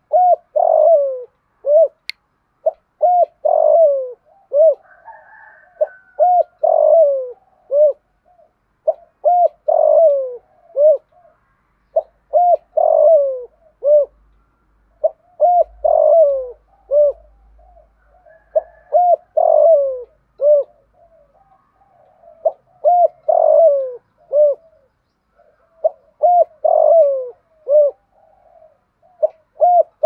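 Spotted dove cooing its calling song: a phrase of several low coos, each rising and falling in pitch, repeated about every three seconds with short pauses between.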